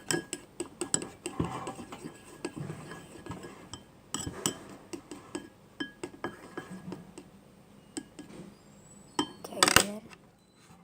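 Spoon clinking and tapping against a container in quick, irregular strikes while measuring shampoo into slime glue. The strikes thin out in the middle.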